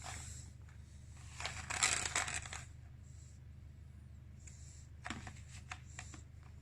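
Baby making raspy, croaking screeches in short bursts, the longest and loudest about a second and a half in, with a few brief ones near the end.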